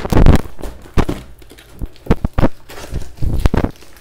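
Cardboard box and its paper packing being handled and opened by hand: an irregular run of loud knocks and rustles, loudest right at the start, with further bursts about one, two and three and a half seconds in.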